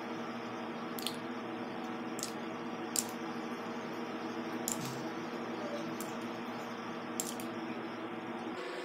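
A metal spoon dabbing egg white onto the skin: scattered light clicks and soft wet taps over a steady background hum.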